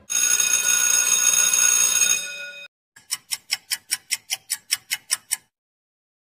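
Two sound-effect clips. First a steady ringing tone with many overtones for about two and a half seconds. Then, after a short gap, about fourteen quick, even ticks at roughly six a second, like a clock ticking.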